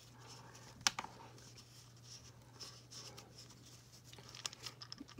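Faint handling noise as a fabric doll dress is pulled and fitted onto a plastic fashion-doll body: soft rustling with a sharp click about a second in and a few small clicks near the end, over a steady low hum.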